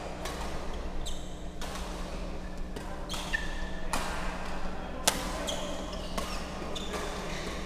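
Badminton rally: sharp cracks of rackets striking the shuttlecock, roughly one a second, the loudest about five seconds in, with brief squeaks of court shoes over a steady low hum of the hall.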